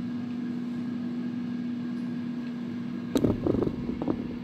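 A steady low mechanical hum, with a burst of knocks and bumps about three seconds in, and one more shortly after, as the recording phone is handled and moved.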